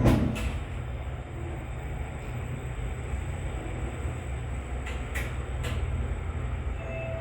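Elevator car travelling between floors: a steady low rumble and hum, with a knock as it gets under way and a couple of faint clicks about five seconds in.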